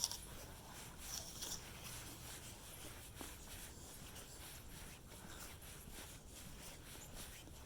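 Faint footsteps and rustling on a forest trail, with brief brushing sounds at the start and again about a second in.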